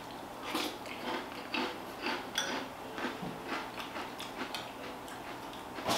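A person chewing a mouthful of crunchy Magic Spoon Cocoa cereal in milk: soft, irregular crunches, about two or three a second.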